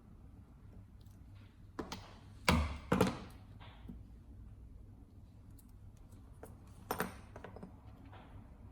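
Leather stitching chisel being struck to punch stitching holes through leather: a few sharp knocks, two close together about two and a half seconds in and another near the end.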